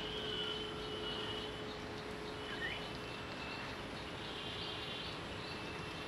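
Outdoor background: a steady hiss with a low steady hum, and faint thin high whistles from distant birds, each about a second long, with one short upward chirp about two and a half seconds in.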